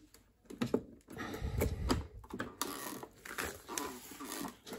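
Andrew James vacuum sealer's lid being unlatched and lifted, with scattered plastic clicks, and the freshly sealed plastic bag rustling as it is handled about a second in.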